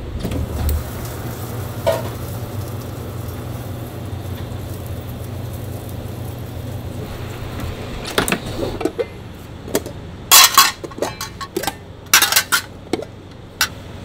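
Metal tongs clinking and clattering against stainless steel food pans and a foil-lined metal tray as food is served out, in a run of sharp clinks starting about eight seconds in. Under it, a steady low hum.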